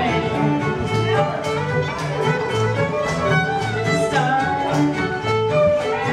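Live string band playing a contra dance tune: fiddle carrying the melody over acoustic guitar and mandolin, with a steady, even beat.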